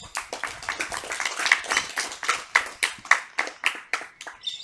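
A small audience claps for an award recipient: distinct, uneven hand claps several a second that thin out and stop shortly before the end.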